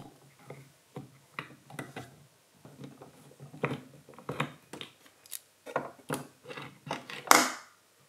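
Fingers and a small tool clicking and scraping on the plastic parts around the grinder screw in a Philips coffee machine's bean hopper, in irregular light taps, with a longer, louder scrape about seven seconds in.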